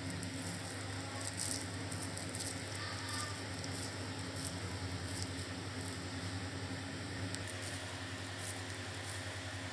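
Faint soft squishing and patting of hands working and rolling a wet minced chicken mixture into balls, with scattered small ticks over a steady low hum.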